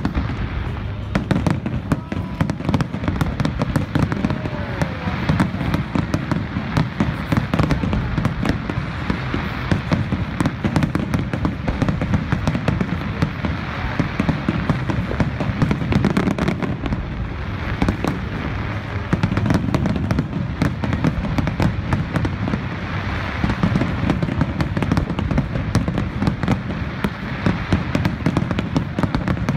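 Professional fireworks display: aerial shells and comets firing and bursting in a dense, unbroken barrage of rapid bangs.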